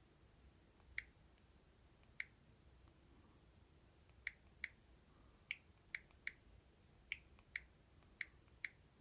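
Key-press clicks of a Samsung smartphone's on-screen keyboard as text is typed: about eleven short, high ticks at an uneven typing pace.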